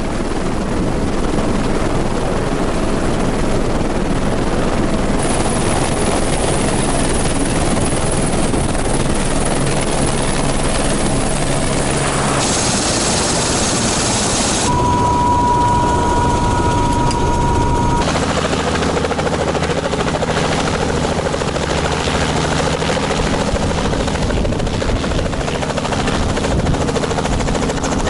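Helicopter engine and rotor running steadily at close range, with a high whine over it for several seconds; the sound shifts abruptly a few times, and a steady high tone sounds for about three seconds midway.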